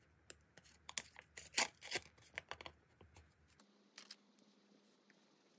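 Small paper card and paper pockets handled close to the microphone: a quick run of crinkles and crackles for about three seconds, then one more crackle a little after four seconds.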